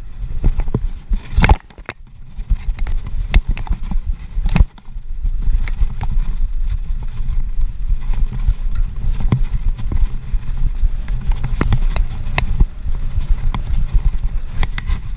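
Downhill mountain bike rattling and knocking over rough dirt trail and wooden boardwalk slats, with many sharp knocks from bumps. Heavy wind rumble on the camera microphone runs under it, dropping out briefly twice in the first five seconds.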